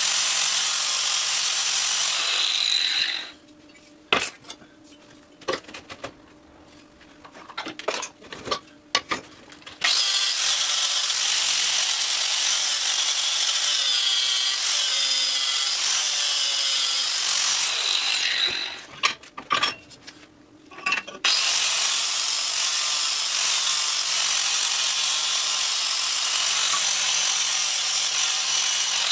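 Handheld angle grinder grinding a metal motorcycle exhaust pipe, in three long runs, each ending with the disc winding down in a falling whine. Between the runs come scattered clicks and knocks of the pipe and tool being handled.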